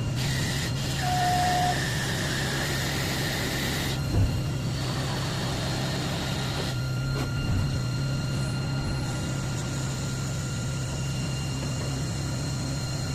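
CNC Swiss-type automatic lathe running through a machining cycle: a steady motor hum with thin whining tones. A hiss of cutting and coolant for the first four seconds stops suddenly with a knock.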